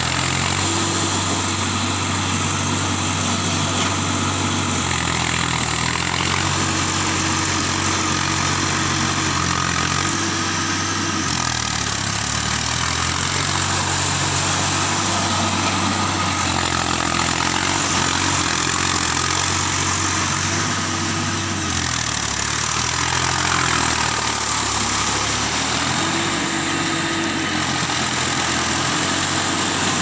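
Diesel farm tractor engine running as it pulls a rotary tiller through flooded paddy mud, its note dropping and rising again several times.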